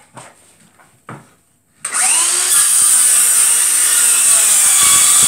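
DeWalt DCS391 18-volt cordless circular saw spinning up about two seconds in, with a rising whine, then cutting steadily through 18 mm plywood. A few light handling knocks come before it starts.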